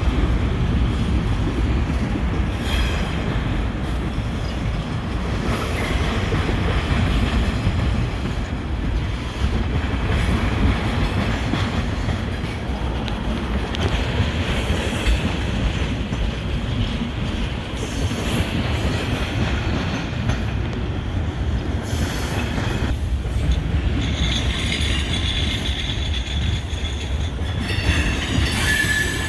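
Freight train rolling past at low speed: a steady rumble of wheels on rail with some clickety-clack, and wheel flanges squealing now and then, most plainly in the last few seconds.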